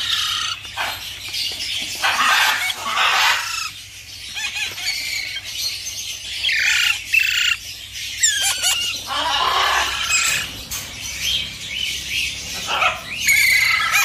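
Caged parakeets, young and adult, squawking in repeated harsh calls every second or two, with some wing flapping.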